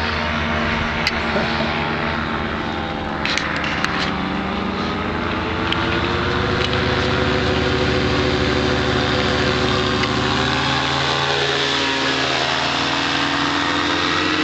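Piston engine and propeller of a light aircraft droning through a low pass. The pitch wavers, drops about eleven seconds in, then climbs again.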